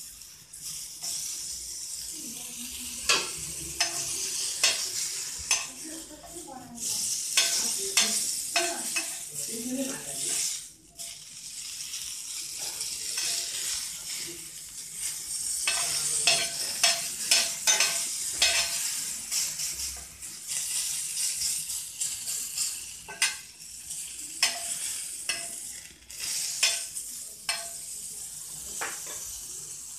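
Yakitori skewers sizzling as they pan-fry in a frying pan, with many sharp clicks and knocks of a utensil against the pan, in denser runs a few seconds in and again past the middle.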